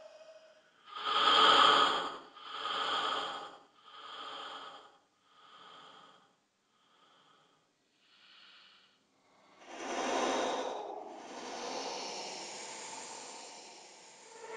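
Horror sound effect of breathy exhalations: a row of short breaths about a second and a half apart that grow fainter, then a stronger breath about two-thirds of the way through that trails off into a long hiss.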